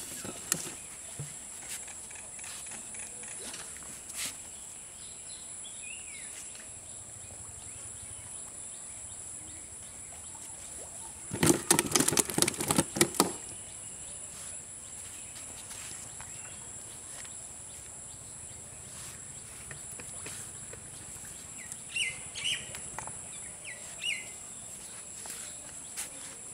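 Rural outdoor ambience with a steady high-pitched whine, birds chirping a few times near the end, and a short burst of rapid clicks and knocks, the loudest sound, about twelve seconds in.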